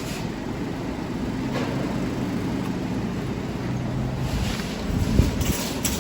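Steady low background rumble and hum, with a single thump about five seconds in followed by a few short rattling clicks.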